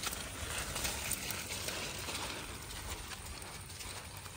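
Wet nylon cast net with small fish in it rustling and dripping as it is lifted out of shallow water, with many small irregular taps and splashes, busiest in the first two to three seconds. Footsteps squelching through wet grass and mud follow.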